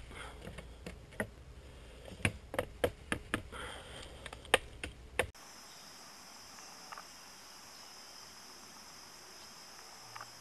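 Irregular sharp knocks and clacks of bamboo poles being handled. After about five seconds the sound cuts abruptly to a steady, high-pitched insect chorus, with a faint click near the end.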